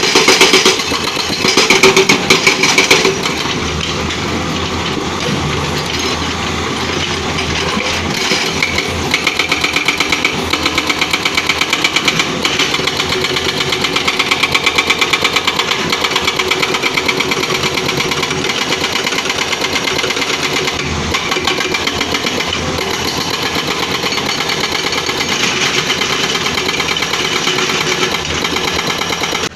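Diesel engine of a hydraulic excavator running under work, with a fast, even pulsing. A louder, choppier stretch comes in the first three seconds.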